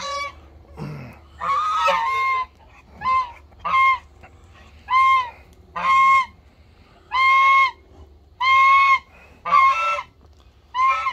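Domestic geese honking loudly, about ten honks at roughly one a second, each a short nasal call. They are alarm and threat honks aimed at a dog the geese dislike.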